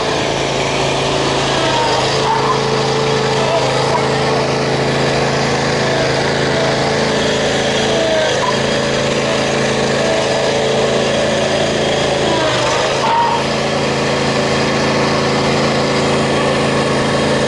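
John Deere zero-turn riding mower's engine running at a steady, even speed while the mower is driven slowly.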